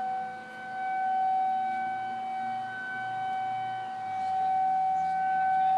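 Outdoor tornado warning siren sounding a steady, single-pitched wail. It swells and fades in loudness about every four seconds, with peaks about a second in and near the end.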